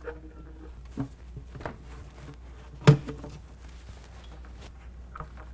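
Handling noise from working a turbo charge tube down between the frame brackets of a side-by-side: a few scattered light knocks and bumps, the loudest about three seconds in, over a low steady hum.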